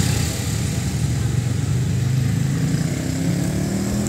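Motorbike engine running in street traffic, its pitch rising a little near the end.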